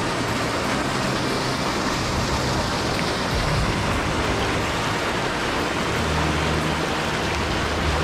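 Mountain stream water rushing over rocks in a steady, unbroken hiss.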